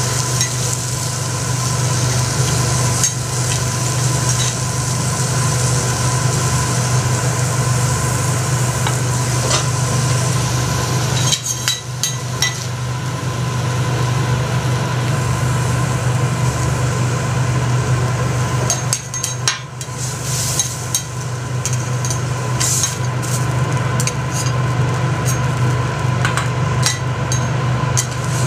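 Food sizzling on a teppanyaki iron griddle, with scattered sharp clicks and taps of metal spatulas on the plate, over a steady low hum.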